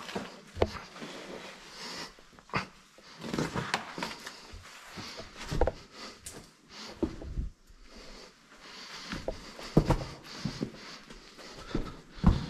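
A person crawling through a tight rock passage: clothing and gear scraping and knocking against the rock at irregular moments, with heavy breathing between. The loudest knocks come near the end.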